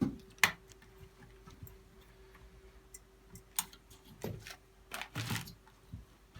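Scattered sharp clicks and light knocks of computer parts being handled and fitted during a PC build, a loud click just under half a second in and a cluster of knocks near the end. A faint steady hum runs underneath.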